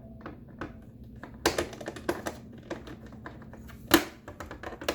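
Scattered clicks and taps of a screwdriver and screws against a coffee maker's plastic housing while screws are being started, with a cluster of clicks in the first half and one sharp click about four seconds in.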